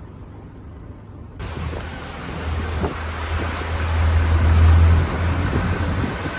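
Yamaha 115 four-stroke outboard running with the boat under way, a low engine hum under rushing water and wind noise. The sound comes in abruptly about a second and a half in and is loudest a little past the middle.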